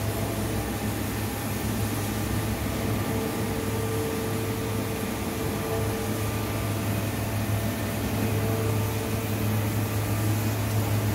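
A steady low mechanical hum with a fainter higher tone above it, holding at an even level throughout: running machinery or ventilation in a workshop.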